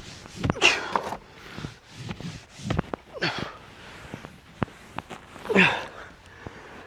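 Carpet being pressed and rubbed onto a van's ceiling by hand, with scratchy rubbing strokes and small knocks. Three short, strained exhalations from the person doing the work are heard, one about half a second in, one about three seconds in and one about five and a half seconds in.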